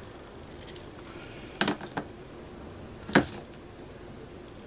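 Small metal clicks and taps as a jump ring is worked onto a fine chain: a few faint ticks, then a pair of sharper clicks, with the loudest single click about three seconds in.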